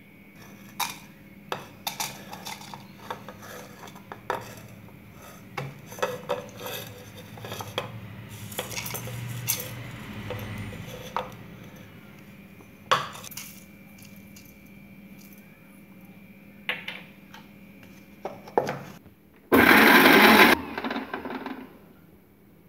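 Chopped coconut pieces and other ingredients dropped by hand into a stainless-steel mixer-grinder jar, with many small clinks and knocks of steel and plate. Near the end there is a loud, harsh burst lasting about a second.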